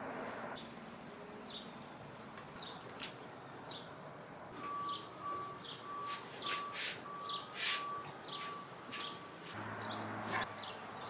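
A small bird chirping over and over, short high chirps every half second or so. In the middle a steady pulsing beep repeats about two to three times a second, with a few short clicks from handling throughout.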